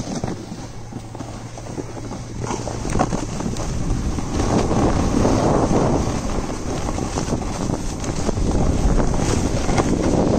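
Skis or snowboard sliding and scraping over hard groomed snow at speed, with wind buffeting the microphone; the scraping grows louder about four seconds in.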